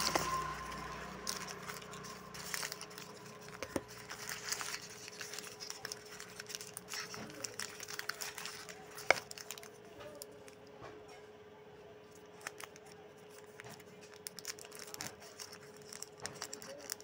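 Plastic KitKat chocolate bar wrappers crinkling and rustling as they are handled and pulled at in the fingers, with irregular crackles and one sharp click about nine seconds in. A faint steady hum runs underneath.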